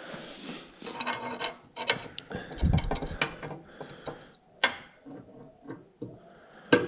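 Light metallic clicks and rattles as a bare steel motorcycle frame and its greased steering-head bearing parts are handled and tilted on a lift, with a dull knock about two and a half seconds in and two sharp clicks later on.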